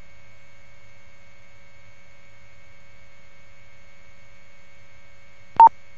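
Steady electrical hum on a police radio audio feed, several steady tones at once between transmissions. A single short, sharp click with a beep in it comes near the end, like a radio keying up.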